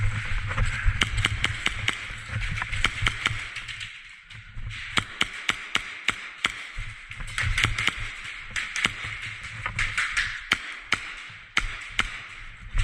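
Airsoft guns firing: many short, sharp shots at irregular spacing, some in quick runs, over a steady low rumble and hiss.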